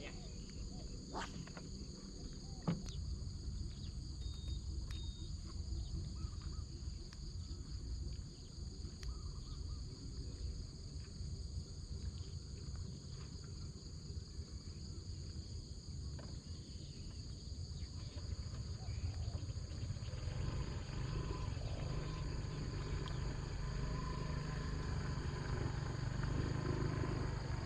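Steady, high-pitched chorus of night insects such as crickets, over a low rumble that grows louder in the last several seconds. A few sharp clicks come in the first three seconds.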